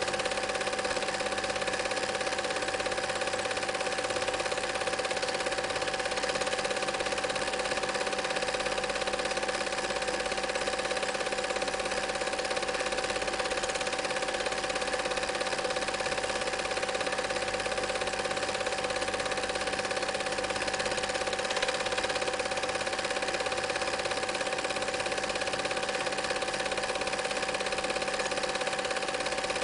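Cine film projector running: a steady, unchanging mechanical noise with constant tones held through it.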